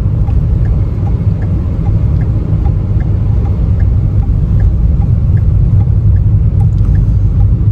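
Road noise inside a car's cabin at highway speed: a steady low rumble of tyres and engine.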